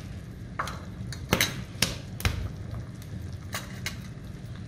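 A spoon and a wooden spatula clinking and knocking against a small dish, about seven sharp clinks spread over a few seconds, over the steady low rumble of broth at a rolling boil in a clay pot.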